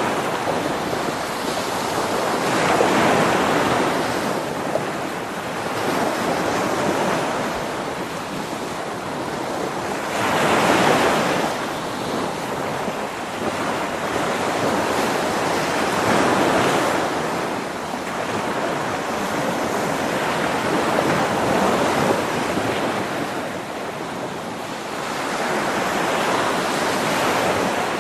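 Sea surf: a continuous wash of waves that swells and subsides every few seconds.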